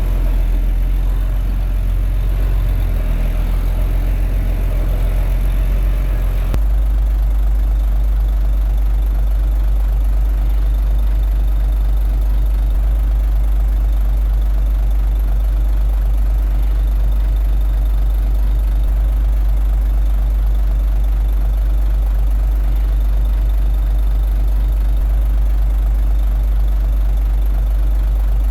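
Diesel engine of a Komatsu D21A bulldozer running steadily. About six and a half seconds in, the sound changes abruptly from a busier working sound to a steadier, plainer drone, like idling.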